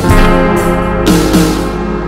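Instrumental music: a few notes struck in quick succession, each ringing on, with the sound starting to fade near the end.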